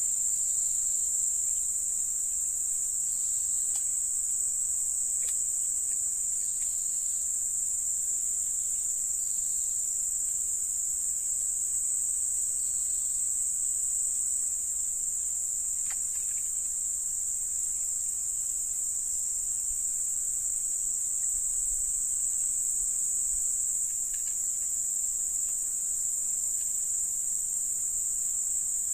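A chorus of crickets or similar insects, one steady high-pitched drone that does not let up.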